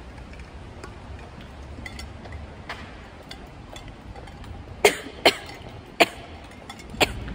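A woman in a choking coughing attack: a run of four sharp, loud coughs starting about five seconds in, after a couple of faint ones earlier.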